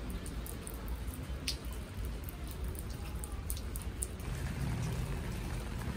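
Light rain falling onto a wet, flat rooftop surface, with scattered single drops ticking. A low steady hum joins about four seconds in.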